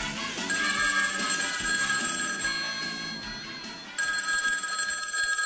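Telephone ringing twice, each ring about two seconds long, over the tail end of background music.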